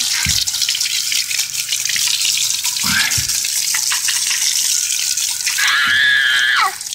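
Garden hose spray hissing steadily as it rinses a wheel and tire and splashes onto wet pavement, cutting off abruptly just before the end.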